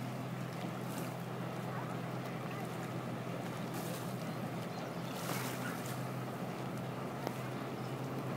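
Watercraft engine idling steadily on the water, a low even drone with a few short gusts of wind on the microphone.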